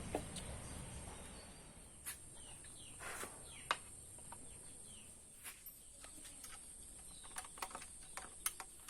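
Quiet outdoor ambience with birds chirping faintly in short falling calls, and scattered light clicks and knocks of small parts and tools being handled.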